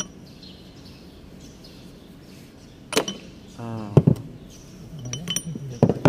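A steel tool knocking and clinking against the cast-iron transmission control valve body of a Shantui SD16L bulldozer as a valve cover is pried open. There is a sharp knock about three seconds in, two loud knocks around four seconds, light ringing metal clinks a little after five seconds, and another loud knock at the end.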